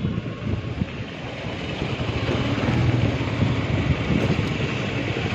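Motorcycle engine running as it is ridden, with wind noise on the microphone.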